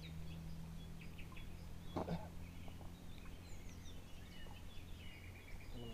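Small songbirds chirping and twittering in short, scattered calls, over a faint steady low hum, with one brief louder sound about two seconds in.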